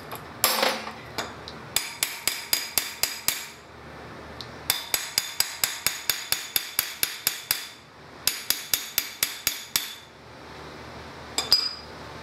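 Ratchet wrench clicking in three runs of quick, even clicks, about six a second, as it is swung back and forth on the nuts of a golf cart's electric drive motor. A metal clank comes just after the start and another near the end.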